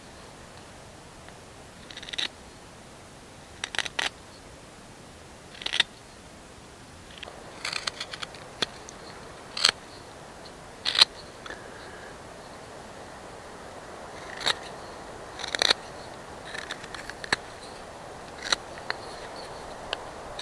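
Small steel knife carving the point of a wooden bow-drill spindle: a series of short, sharp shaving cuts, irregularly spaced a second or two apart.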